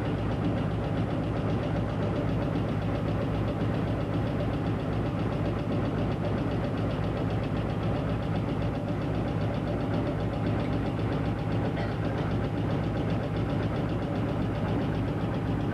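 GE U20C locomotive's V12 diesel engine running steadily at idle, heard with its engine-room doors open, with a steady low hum and an even rapid beat.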